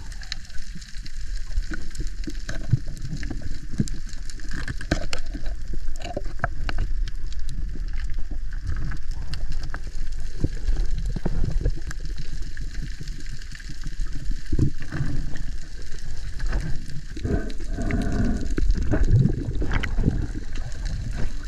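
Underwater sound picked up by a diver's camera on a reef dive: a steady low rumble of moving water with many scattered crackling clicks throughout, and a few louder muffled gurgling sounds near the end.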